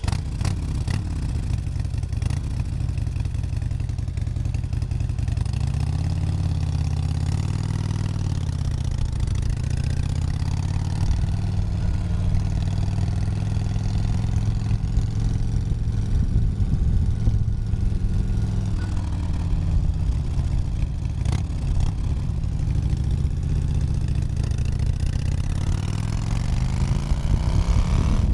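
Motorcycle engine running, heard from the rider's seat while riding. Its pitch rises and falls a few times with the throttle and climbs again near the end.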